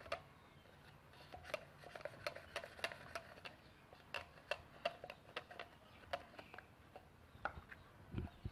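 Faint, irregular small clicks and taps of a spoon and seasoning containers as spices are added to chicken for marinating.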